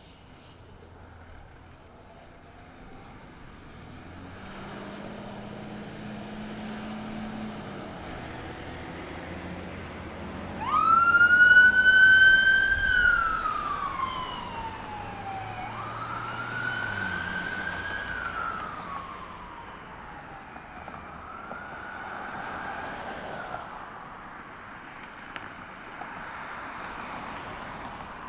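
Emergency siren of responding fire apparatus wailing, code 3: one loud wail rises sharply about ten seconds in and falls away slowly, then two weaker wails follow. Under it run a heavy truck's engine and passing traffic.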